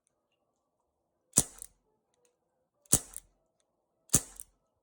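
Brodax CO2 BB revolver firing three shots, each a sharp pop with a short tail. The second comes about a second and a half after the first, the third just over a second later.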